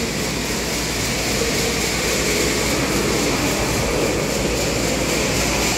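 Steady, even rushing noise of room ventilation fans.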